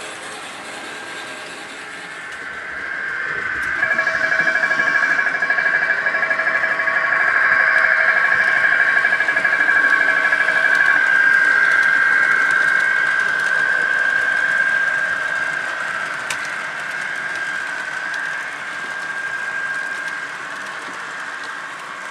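Model train's small electric motor whining steadily as the train runs past, rising over a couple of seconds to a peak and then fading away.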